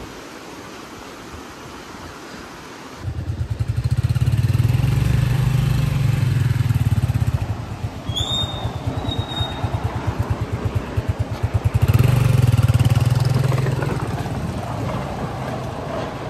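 Small engine of a motor tricycle chugging with a fast, even firing beat. It starts abruptly about three seconds in, is loudest around five seconds and again around twelve, then fades away.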